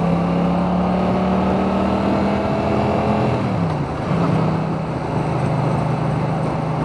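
Yamaha MT-07 parallel-twin engine with an Akrapovic titanium exhaust, pulling steadily under way and heard from inside the rider's helmet over wind rush. The engine note climbs slightly, then drops about three and a half seconds in and holds steady at a lower pitch.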